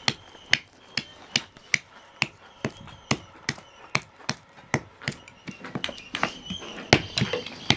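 Small hand axe chopping a wooden spoon blank held on a wooden block, shaping the spoon: sharp chops at about two a second.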